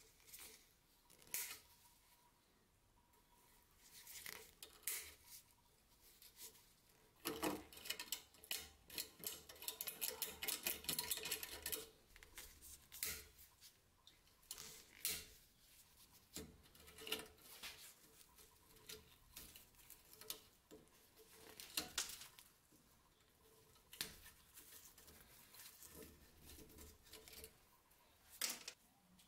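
Diagonal side cutters snipping through rusted wire binding on a wooden handle, with the wire being pulled and broken away: sharp metallic clicks at irregular intervals, and a denser run of rapid clicks and crackle for a few seconds near the middle.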